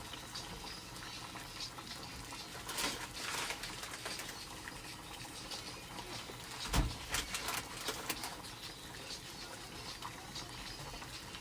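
Faint scattered kitchen handling sounds: light rustling, scraping and clicks, with one dull thump about seven seconds in.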